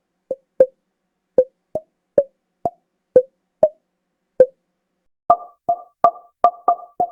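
A run of short, soft pop-up sound effects of the kind used for on-screen icons and message bubbles, one separate pop at a time. About five seconds in they switch to a quicker series of brighter two-note pops, each with a short ringing tail.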